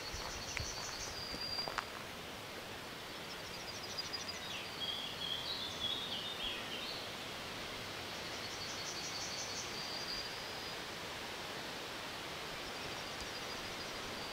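Outdoor ambience: a steady background hiss with a small songbird repeating a short, high trilled phrase about every four seconds, and a second bird chirping briefly around the middle.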